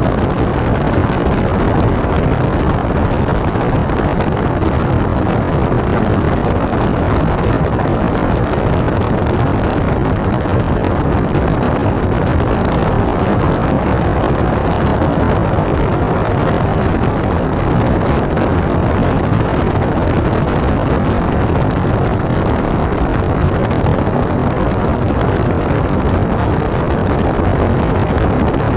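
Airflow rushing over the onboard microphone of an E-flite UMX Air Tractor RC plane in flight, mixed with its small electric motor and propeller, plus a steady high whine.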